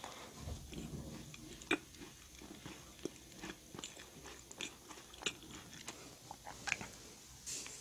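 Close-miked chewing of a crisp meringue cookie: soft, irregular crunches and small crackling clicks, with a sharper crunch about two seconds in.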